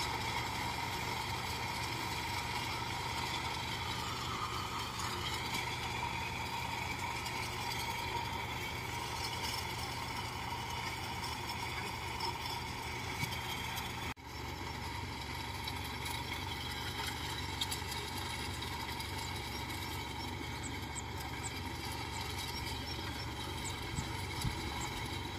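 Engine of a small tracked rice carrier idling steadily, a constant even hum, broken off for a moment about halfway through.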